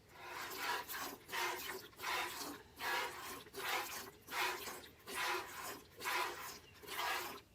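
Goat being hand-milked: jets of milk squirting into a feed bucket in a steady rhythm, a little more than one squirt a second, each a short hiss with a faint ring from the bucket.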